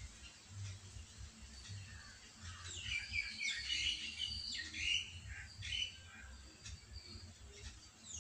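Birds chirping and calling in quick, overlapping bursts, busiest a few seconds in, with faint low thumps underneath.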